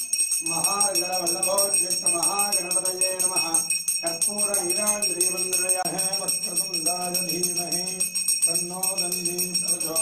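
A brass puja hand bell rung continuously in rapid, even strokes during a Hindu abhishekam ritual, while a voice keeps chanting Sanskrit mantras in a steady, even pitch.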